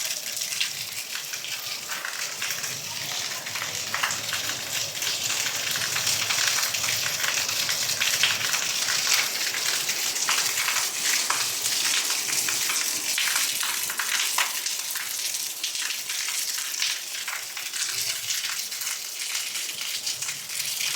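Heavy rain falling steadily: a dense hiss full of fine patter, with rainwater pouring off a corrugated tin roof.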